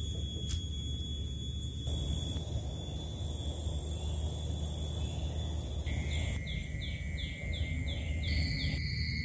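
Pine-forest ambience: a steady low rumble under several steady high-pitched droning tones. From about six seconds in, a bird gives a quick series of short chirps, about three a second.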